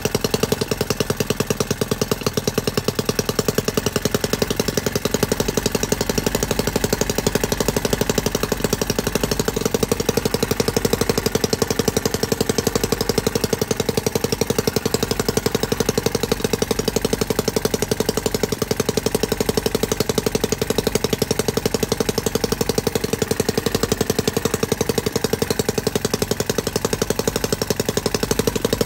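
Whippet 10cc model engine (Edgar T. Westbury design, built from the casting kit) running steadily, with a rapid, even firing beat.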